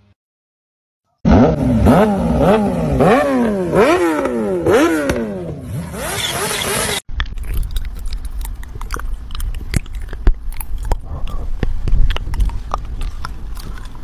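A wailing sound that rises and falls in pitch about twice a second for several seconds. It then gives way to a cat chewing on a headset cable, a noisy stretch of crunchy clicks and scrapes.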